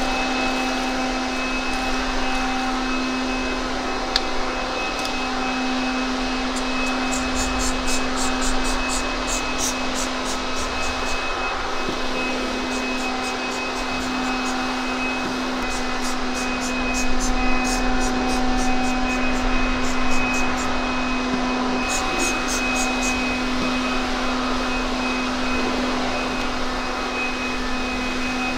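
A motor drones steadily with a constant low hum. Over it come several runs of quick, scratchy strokes from a brush scrubbing a car wheel.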